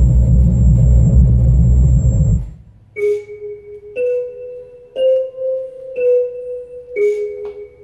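Music from a music video playing in a home theater: a loud, deep rumbling passage cuts off about two and a half seconds in, and single ringing mallet-like notes follow, about one a second.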